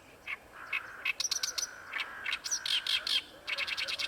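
Oriental reed warbler singing: rapid runs of loud, harsh, grating notes in quick succession, with a short break about three seconds in.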